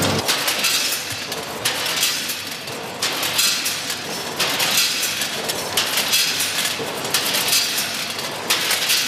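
Multihead combination weigher running: hard pieces of product clatter across its feed pans and through its hoppers with many sharp clicks and rattles, in repeating surges as the hoppers fill and dump.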